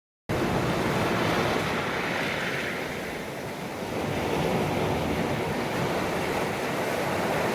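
Sea waves washing onto a beach: a steady rush of surf that eases slightly about three seconds in.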